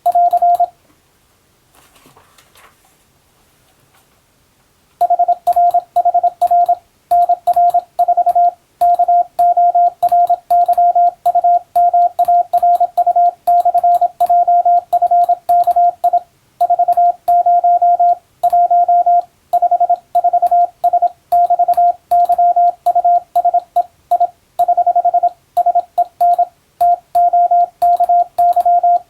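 Morse code (CW) tone of about 700 Hz, keyed on and off in quick dots and dashes at a fast, steady sending speed, with short gaps between characters and words. The code starts in earnest about five seconds in and then runs without a break.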